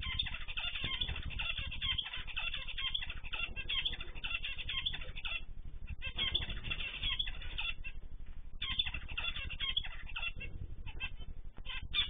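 Mixed aviary birds (cockatiels, zebra finches and canaries) chirping in a dense stream of short, overlapping calls, easing off briefly about halfway and again around eight seconds in.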